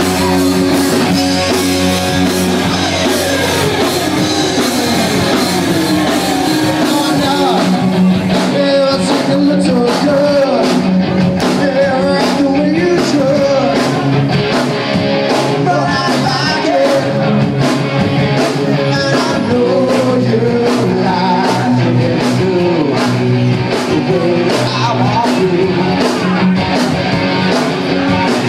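Live rock band playing loud: electric guitar and a drum kit, with singing over it. The drums set a steady beat from about eight seconds in.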